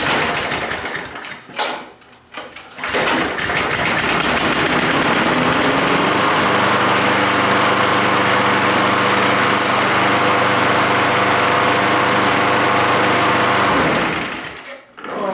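Small gas push lawn mower engine that has just started after sitting unused, running fast and steady, with a short dip about two seconds in. It shuts off and winds down near the end.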